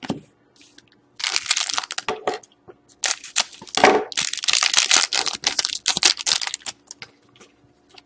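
Crinkling and crackling of trading-card packaging being handled, in two stretches: about a second in, and then from about three to nearly seven seconds in.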